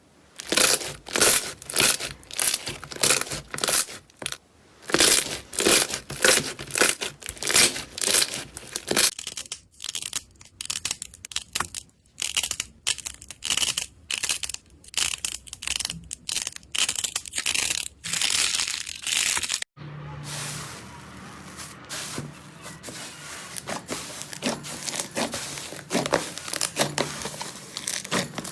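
Slime being squeezed and pressed by hand, giving rapid crackling and popping in bursts. About 20 seconds in the sound breaks off suddenly, and a quieter, finer crackling follows.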